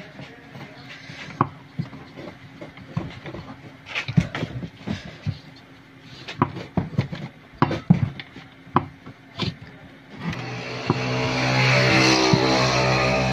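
Scattered metal clicks and knocks of hand tools working loose the pulley on an upturned washing machine. About ten seconds in, a loud steady whirring with a buzzing tone starts and keeps going.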